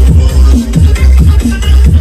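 Loud electronic dance music with deep bass hits that slide down in pitch, played at high volume through a car's boot-mounted sound system.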